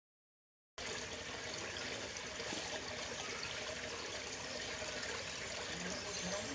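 Steady trickling of running water, starting abruptly after a moment of dead silence.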